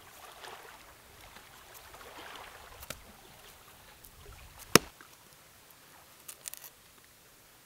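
A knife scraping and shaving the skin off a celeriac, in soft scratchy strokes with a few light clicks. One sharp click about five seconds in is the loudest sound.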